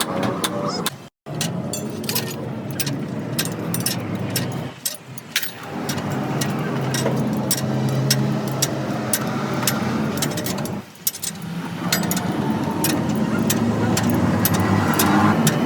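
A truck's engine running steadily, with many sharp clicks and knocks over it. The sound breaks off briefly three times.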